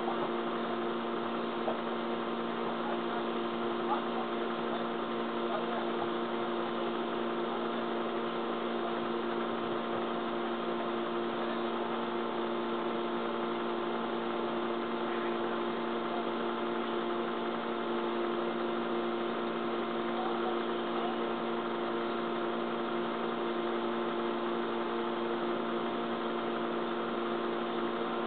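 A steady electrical-sounding hum holding two constant low tones over a light hiss, unchanging throughout, with a few faint ticks in the first few seconds.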